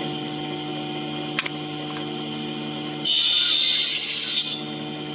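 Electric power tool running with a steady hum. About three seconds in, it cuts into wood for about a second and a half, the loudest part, with a high cutting noise.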